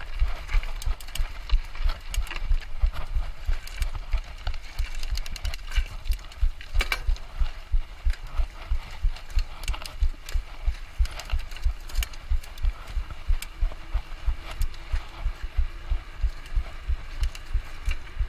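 Mountain bike ridden over rough trail, picked up by a camera on the rider or bike: a regular low thumping about three times a second, with scattered clicks and rattles from the bike.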